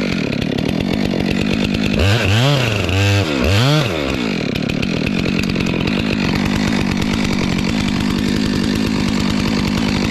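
Stihl petrol chainsaw cutting through a tree trunk at high revs. About two seconds in, the engine note rises and falls three times, then it holds steady under load through the cut.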